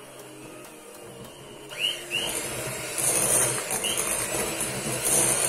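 Electric hand mixer running through a thick carrot-cake batter of grated carrots. It gets much louder about two seconds in and stays loud.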